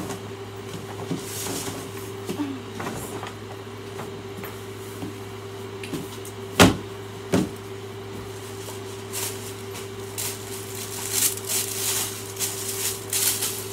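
A cardboard shoebox and a paper shopping bag being handled. Two sharp knocks come a little past halfway, then rustling near the end, over a steady low hum.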